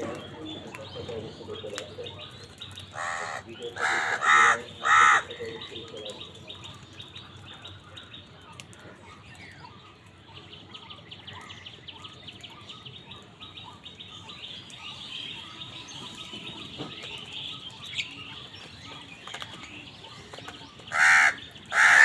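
A flock of house crows cawing: a cluster of three or four loud, harsh caws about three to five seconds in, and another cluster starting near the end. Fainter chirping continues in between.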